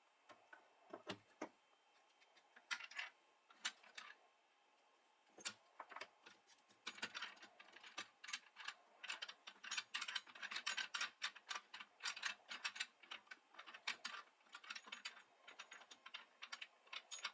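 Quick, irregular light clicks and taps, a few scattered ones at first and then a dense run from about five seconds in, much like typing.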